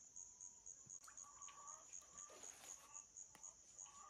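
Faint insect chirping in a fast, even pulse of about five chirps a second, high-pitched and steady.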